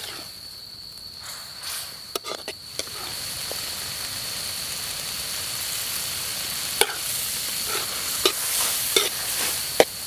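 Waterlily stems stir-frying in a hot wok, a steady sizzle that grows fuller a few seconds in. A metal ladle clinks and scrapes against the wok several times as the stems are turned.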